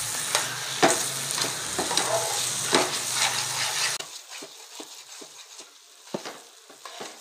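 Metal spoon stirring and scraping thick semolina halwa around an aluminium frying pan over a steady frying sizzle. About four seconds in, the sizzle drops away sharply and only quieter, scattered scrapes of the spoon remain.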